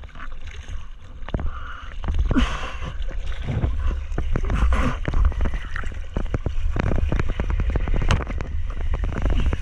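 Seawater splashing and rushing around a surfboard as a surfer paddles into an incoming wave, with a heavy low rumble and many small splashes hitting right at the microphone. It grows louder about two seconds in.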